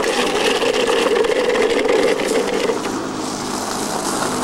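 Small motor scooter engine running, its note dropping and settling lower about three seconds in.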